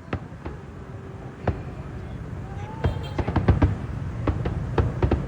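Fireworks going off: a string of sharp bangs over a low rumble, coming thick and fast about three seconds in, with crowd voices faint underneath.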